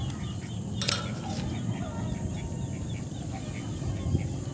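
Domestic ducks calling in a string of short, repeated calls, with one sharp click about a second in.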